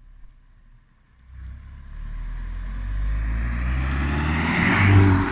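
Volkswagen Golf GTI's turbocharged 2.0 TSI four-cylinder on its stock exhaust, accelerating hard: it builds from quiet to loud with the engine note climbing, peaks near the end, then drops off sharply.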